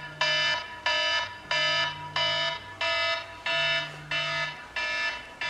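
Smartphone alarm going off: a repeating electronic tone, about three pulses every two seconds, with a low buzz about every two seconds under it.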